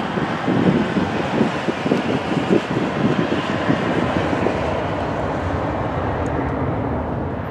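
Boeing 737 jet engines running loud during the landing roll-out, a steady, dense rumble that eases a little near the end.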